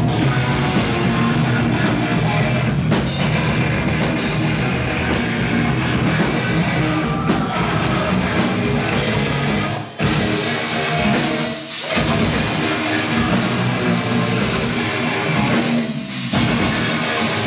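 Live heavy metal band playing: electric guitars, bass and drum kit pounding out a riff, with brief stops about ten and twelve seconds in and again near the end.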